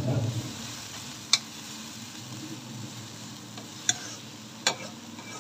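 Minced meat frying with ginger-garlic paste, sizzling steadily as it is stirred. A utensil knocks sharply against the pan three times.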